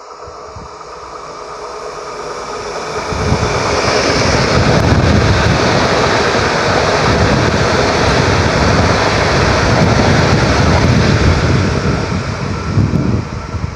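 PKP Intercity ED250 Pendolino electric high-speed train running through the station without stopping. The rush of wheels on rail and air builds over the first three seconds, holds loud and steady for about nine seconds while the train passes, and eases off near the end, with wind buffeting the microphone.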